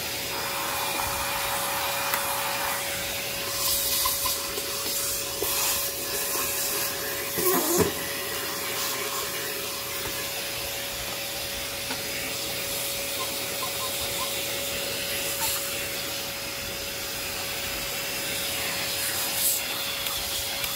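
Bench vacuum running steadily, its motor holding one steady whine over the hiss of rushing air. Brief louder rushes and clatters, the loudest about eight seconds in, come as its crevice nozzle sucks debris off a plastic vacuum dust cup and cyclone filter.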